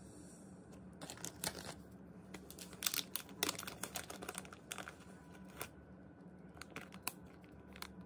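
Crinkling and crackling of a small hamster-treat sample packet being handled, in irregular bunches of sharp crackles, thinning out past the middle and returning briefly near the end.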